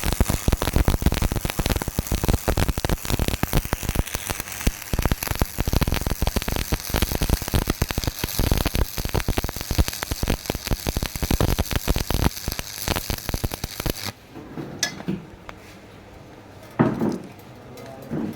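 Stick welding arc crackling and sizzling steadily for about fourteen seconds, then cutting off; a few short, fainter sounds follow.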